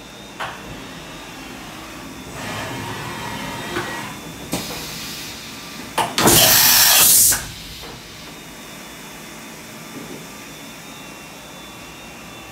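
Doosan Mynx 5400 vertical machining center cycling under power: the axis slides whir for about two seconds, broken by clicks and knocks, then a short hiss and, about six seconds in, a loud hiss lasting about a second, over the machine's steady background hum.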